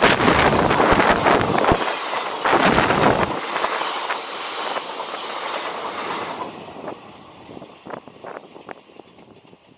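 Passenger train coaches running past at speed close by, with a loud rush of wheel and rail noise and scattered clatter. About six seconds in, the last coach clears and the sound fades quickly away.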